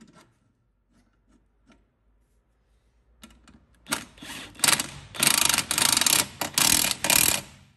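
Impact wrench hammering as it runs a rear shock absorber mounting bolt tight, in several loud bursts starting about four seconds in, after a few faint clicks.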